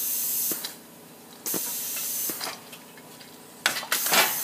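Compressed air hissing in three short bursts as the scissor mechanism's 2-inch-bore pneumatic cylinder is fired at 60 PSI: one at the start, one about a second and a half in, and one near the end. A few light clicks come between the bursts.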